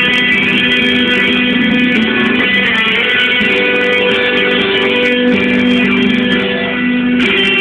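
Guitar solo: plucked guitar notes ringing out and held, the melody shifting every second or so.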